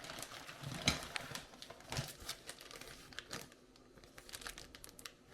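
Plastic packaging crinkling and rustling in short, irregular crackles as small parts are handled and unwrapped.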